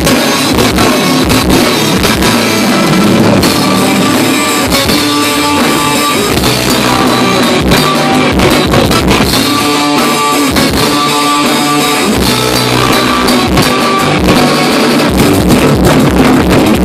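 A rock band playing live: loud, distorted electric guitars over a driving drum kit.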